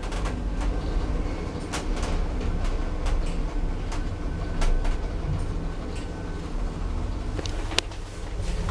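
Schindler lift car travelling: a steady low hum from the running lift, with a few sharp clicks along the way.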